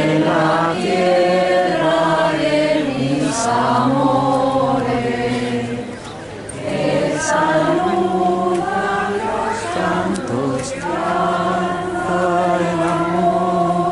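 Congregation of mostly women's voices singing a hymn together, in two long sung phrases with a brief break about six seconds in.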